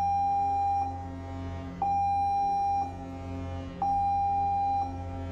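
Ship's general alarm sounding the abandon-ship signal: a steady high electronic tone pulsing about one second on, one second off, three times.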